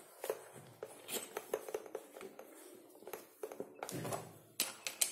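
Quiet, irregular metal clicks and taps of a hinge-boring cutter being fitted into a drill chuck and the chuck tightened by hand, with a little more handling noise near the end.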